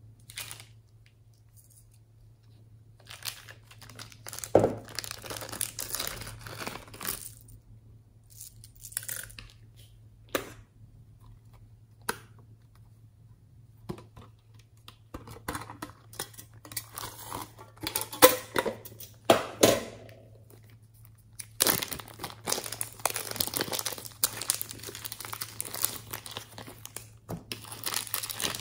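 Scattered clicks and short rustles of plastic makeup cases being handled. About two-thirds of the way through, glittery slime is pulled and pressed, giving a dense, sticky crackling that goes on steadily.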